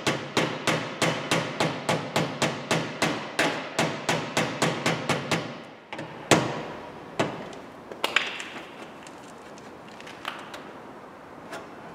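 Teflon hammer tapping the edge flange of a Peugeot 208's front fender from inside the wheel arch: about four quick taps a second for the first five seconds, then a few single taps spaced a second or more apart. The flange is being tapped to give it back its stiffness.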